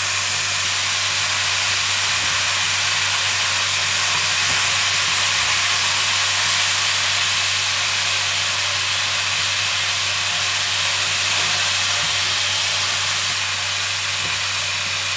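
Chunks of boiled long eggplant frying in hot oil in a pan: a steady sizzle, with a steady low hum underneath.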